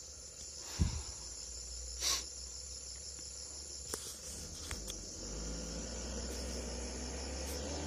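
Steady high-pitched insect chorus, a continuous pulsing drone of forest insects. A sharp thump about a second in is the loudest sound, with a brief hiss near two seconds and a couple of small clicks; a low rumble builds from about five seconds.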